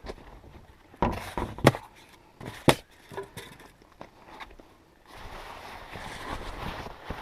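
A heavy cardboard-boxed rooftop tent being handled: three sharp knocks in the first few seconds, then a steady rough scraping from about five seconds in.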